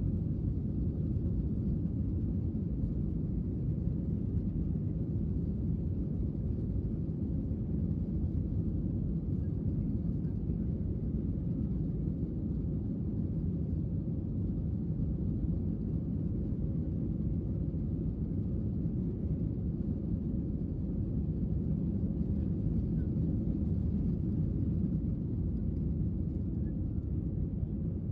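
Cabin noise of an Airbus A321-200 on its takeoff run, heard from a window seat behind the wing: a steady low rumble from the engines at takeoff thrust and the wheels on the runway. Near the end the aircraft lifts off and the rumble eases slightly.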